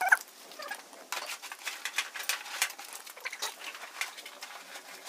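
Scratchy fabric rustling and many light clicks as a cloth dust cover is pulled over a MIG welder, with a brief squeak right at the start.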